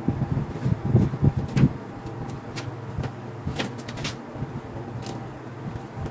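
Handling thumps and knocks for the first couple of seconds, then several sharp metallic clicks as a screwdriver works against the metal lever hub of a Lassane Espiramatic spiral-binding punch, over a steady low hum.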